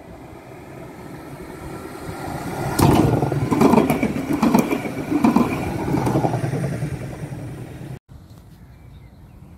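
A tram passing close by: its rolling noise builds up, then comes a run of sharp clacks a little under a second apart as its wheels cross rail joints or a switch. The sound fades and cuts off suddenly about eight seconds in.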